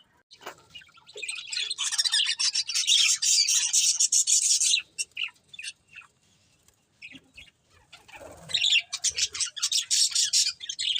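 Pet budgerigars chattering in rapid, high chirps for a few seconds, falling quiet briefly in the middle, then starting up again.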